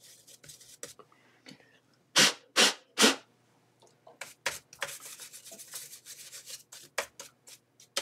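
Small brush sweeping dust out of a laptop CPU cooler's fan and heatsink, its bristles rubbing and scratching. There are three louder strokes about two to three seconds in, then a run of quick short strokes.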